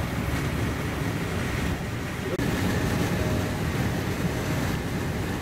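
Steady rumble and rush inside a Mark 3 passenger coach of a High Speed Train running at speed: wheels on rail and air noise heard through the carriage.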